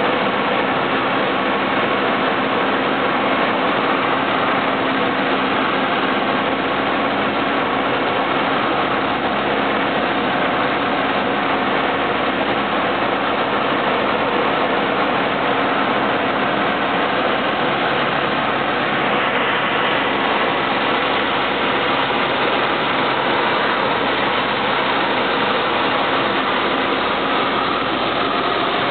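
Steady drone of a single-engine light plane's engine and propeller at cruise power, heard inside the cabin, with no change in pitch or level.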